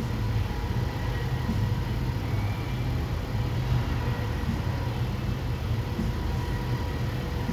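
2021 Nissan Sentra's four-cylinder engine idling steadily, running again now that the missing fuel pump fuse has been put back.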